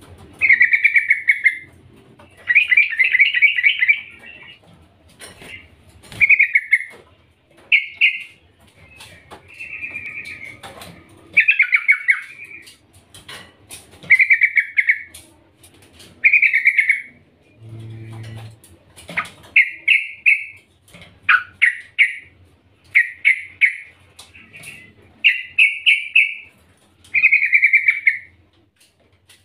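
Yellow-vented bulbul giving short, bubbling chattering call phrases over and over, one every one to two seconds, with a few light knocks in between. These are the calls presented as a female calling a male.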